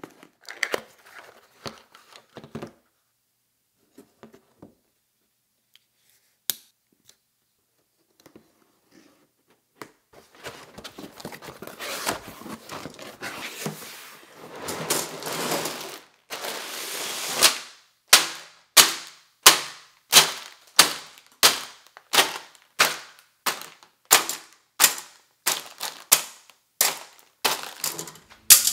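Unboxing a LEGO set: scattered handling clicks, then a stretch of cardboard and plastic rustling as the box is opened. Then a regular run of sharp thunks about two a second as the plastic bags of pieces are set down on the table.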